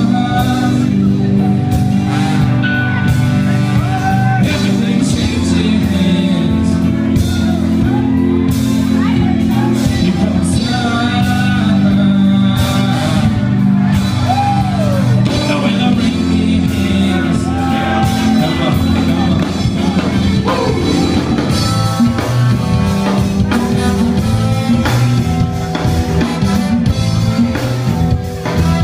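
A live rock band playing at full volume: electric guitar, keyboards and drum kit, with a melody line gliding over the top.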